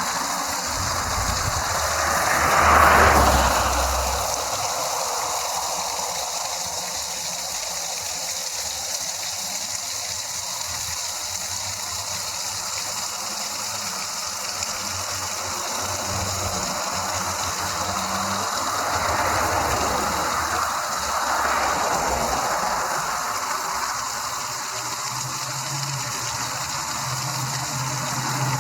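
Steady rush of a mountain waterfall running high after heavy rain, with vehicles passing on the highway: a loud pass-by about three seconds in, another around twenty seconds in, and an engine approaching near the end.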